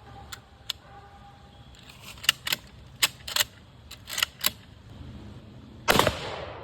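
Mosin-Nagant bolt-action rifle being handled and loaded: a string of sharp metallic clicks, then a single rifle shot about six seconds in that rings away over a second or so.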